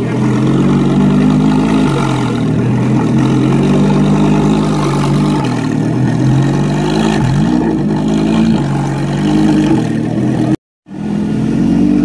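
Lamborghini Gallardo Super Trofeo race car's V10 idling through its open race exhaust, with a few light blips of the throttle that briefly raise the engine note.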